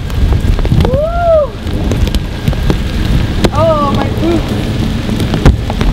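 Steady rain noise with heavy rumble on the microphone and clicks of brush and footsteps on the wet trail. Two short wavering cries rise and fall, about a second in and about three and a half seconds in.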